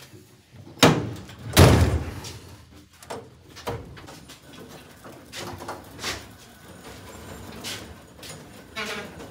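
Steel top tool chest being shifted and set down on a steel bottom tool cabinet: a sharp bang about a second in, then a heavier, rattling metal clunk, followed by lighter knocks and scrapes as it is nudged into position.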